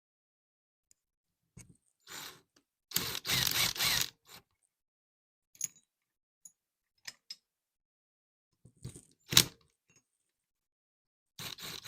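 Metal tools and engine parts handled on a workbench: scattered clicks and rattles, a clatter of metal about three seconds in, and one sharp knock about nine seconds in.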